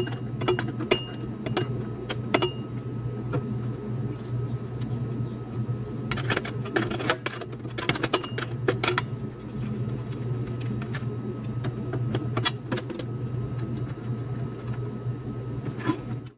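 Metal clicking and clinking of a spanner turning the tail-lamp mounting bolts on a truck's steel rear bracket, over a steady low hum. The clicks come in a dense run in the middle, then thin out.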